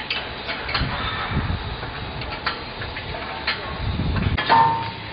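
Scattered metallic clicks and knocks from the steel mould and frame of a QT4-24 concrete block machine being handled during a mould change, with a few duller thuds and a short high squeak about four and a half seconds in.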